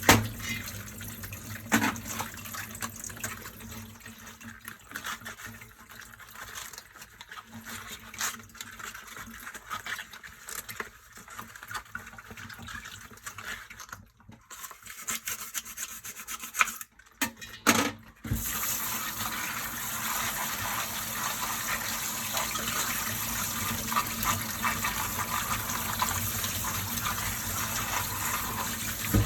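Dishes being washed by hand at a sink: for the first eighteen seconds or so, scattered clinks, knocks and rubbing with short pauses. Then the kitchen tap is turned on and water runs steadily.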